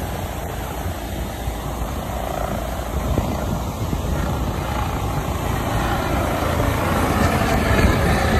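Coast Guard helicopter passing overhead, its rotor and engine noise growing steadily louder as it comes closer.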